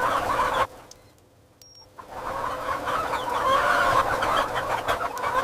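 A flock of young chickens calling, a dense overlapping chatter of many birds. It breaks off suddenly under a second in, goes nearly quiet for over a second, and then comes back and carries on.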